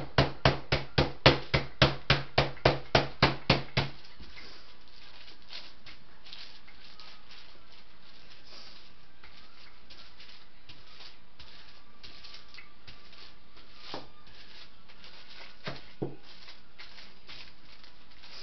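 Wooden rolling pin beating raw chicken breasts flat through wax paper: rapid, even thumps, about three or four a second, that stop about four seconds in. After that there are only a few faint knocks as the pin is rolled over the meat.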